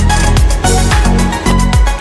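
Electronic dance music with a steady beat, roughly two bass-heavy kicks a second under sustained synth chords.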